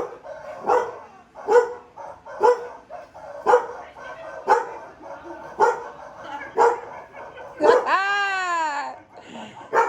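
Dog barking in single barks about once a second, then a long, drawn-out cry that rises and falls in pitch near the end.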